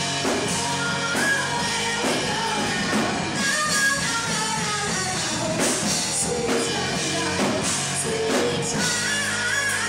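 Live rock band playing with a singer, drum kit and guitars, heard through a room's sound system.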